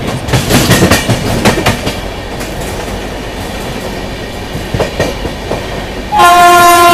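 Wheels of a fast-running Indian Railways passenger coach clatter over rail joints, with a steady rush of running noise. About six seconds in, a loud, steady train horn starts and holds.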